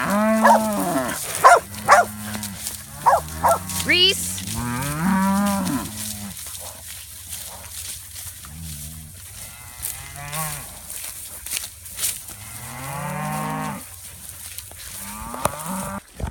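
Herd of cows and calves mooing: one long call after another, often overlapping, loudest and most frequent in the first six seconds.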